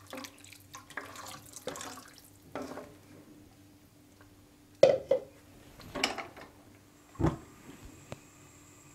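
Chicken stock sloshing in a wok as the vegetables are stirred through it with a spatula-spoon, with the spatula scraping and knocking against the pan a few times, the loudest knock about five seconds in.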